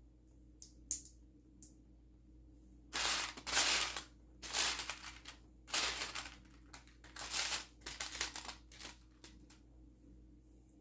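Hands working with loose plastic Lego pieces. A few small clicks come first, then about six seconds of irregular rattling and rustling in repeated bursts, like pieces being sifted through and shuffled.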